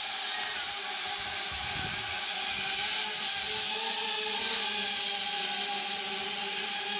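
Wing delivery drone's many small electric rotors whirring steadily overhead, a high hiss over a steady two-note hum, growing slightly louder as the drone descends closer.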